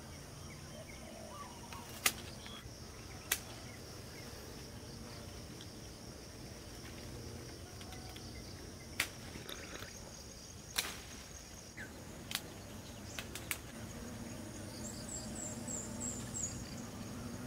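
Steady high-pitched insect chorus, with about seven sharp clicks or knocks scattered through it and a short run of high chirps near the end.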